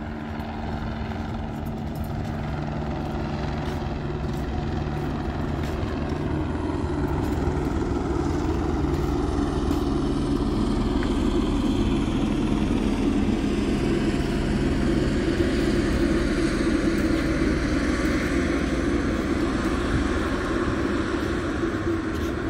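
A motor engine running steadily with a low hum. It slowly grows louder toward the middle and eases off a little near the end, as if passing close by.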